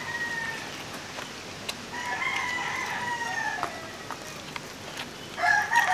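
Rooster crowing: the end of one crow at the start, a full long crow about two seconds in, and another beginning near the end, each held on one pitch and dropping slightly as it ends. A few faint clicks between them.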